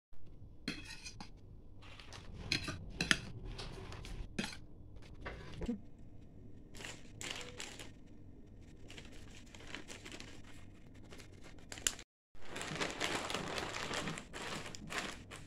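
Clinks and knocks against a ceramic plate as boiled potato cubes are tipped into a plastic bag, then the bag rustling and crinkling as it is shaken by hand to coat the potatoes in starch. The shaking is the densest stretch, after a brief break about twelve seconds in.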